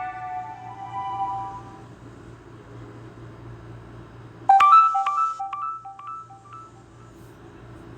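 Nokia E5 ringtones played on a Samsung Galaxy A51's loudspeaker: one melody fades out over the first two seconds, then about four and a half seconds in a bright electronic chime starts suddenly, its notes repeating quickly and fading away like an echo. A low steady hum sits under it.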